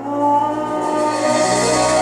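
Instrumental music with held notes; a new phrase swells in at the start.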